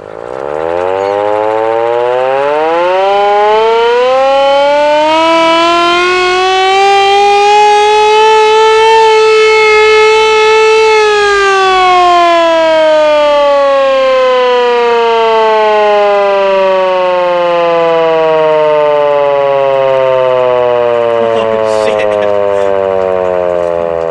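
Carter Nelson hand-cranked air raid siren wound up from rest, very loud: its wail climbs in pitch for about ten seconds, holds briefly at the top, then slowly falls as the rotor spins down.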